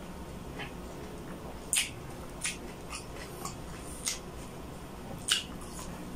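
Close-miked eating sounds of pork adobo being chewed: a series of short wet smacks and clicks from the mouth, about seven in all, two louder ones near 2 s and 5 s in, over a steady low hum.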